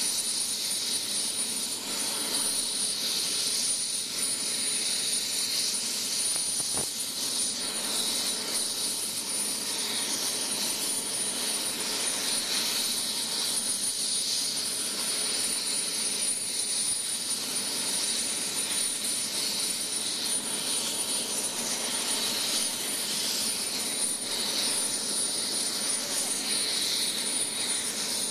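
Air ambulance helicopter's turbine engine running on the ground, a steady high-pitched whine over an even rushing noise.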